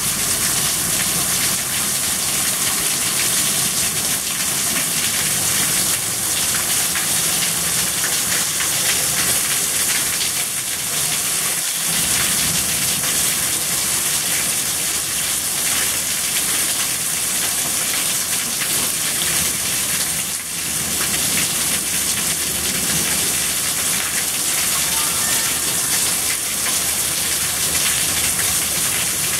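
Rain falling steadily as an even hiss, with no let-up.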